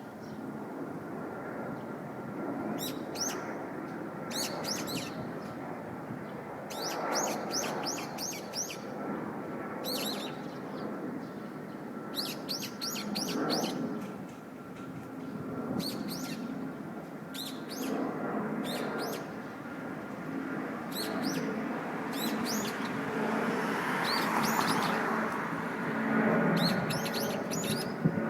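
Small songbirds chirping in short runs of quick, high, sharp notes, a run every second or two, over a steady background murmur.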